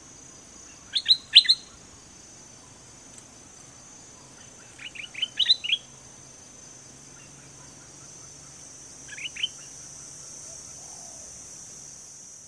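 Stripe-throated bulbul singing three short phrases of quick, clear notes several seconds apart, the first the loudest, over a steady high-pitched insect buzz.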